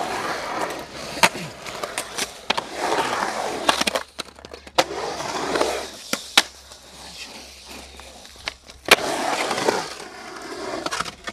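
Skateboard urethane wheels rolling over the smooth concrete of a skate bowl, the rolling noise swelling and fading as the board carves up and down the transitions. Sharp clacks from the board and trucks striking the concrete and coping punctuate it, the loudest about nine seconds in.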